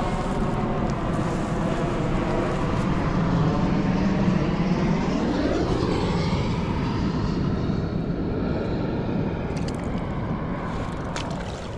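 A propeller plane flies over, its engine drone growing louder and then dropping in pitch as it passes.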